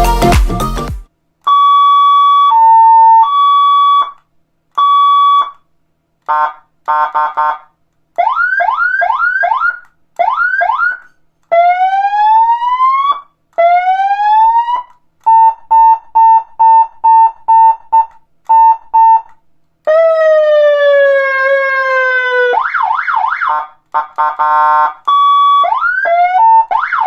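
Electronic vehicle siren unit (СГУ) playing through a series of its signals with short gaps between them: a two-tone hi-lo, quick rising quacks, slow rising wails, rapid beeps, a long falling tone and a fast warble.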